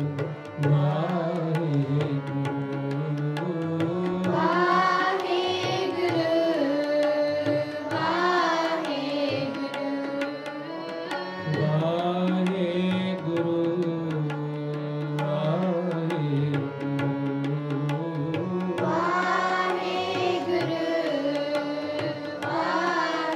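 Sikh kirtan: harmoniums holding a sustained drone and melody while a tabla keeps a steady beat, with voices singing long, gliding phrases at intervals.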